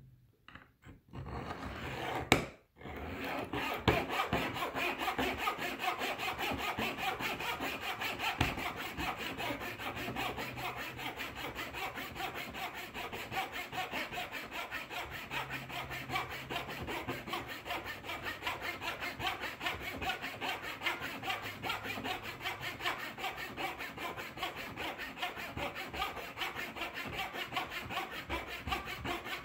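An Andis GTX trimmer blade is worked back and forth on a 1 Minute Blade Modifier, sharpening its teeth. After a few handling knocks, a fast, even scraping rhythm starts about three seconds in and keeps going steadily.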